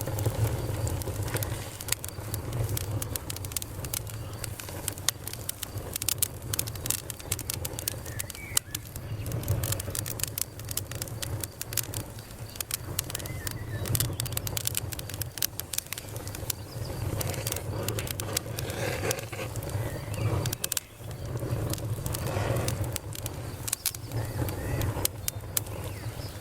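Wood campfire crackling, with frequent irregular sharp pops and snaps over a steady low rumble.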